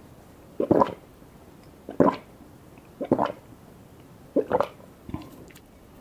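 A person swallowing gulps of a drink from a metal cup: four gulps a little over a second apart, then a softer one near the end.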